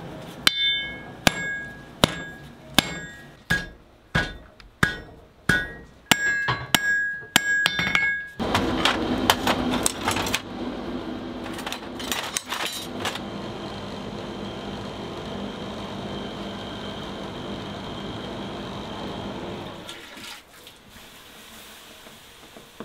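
Blacksmith's hammer striking heated iron on an anvil: about a dozen ringing blows in an even rhythm, roughly one and a half a second, for the first eight seconds. After that a steady rushing noise with a low hum runs on and drops away near the end.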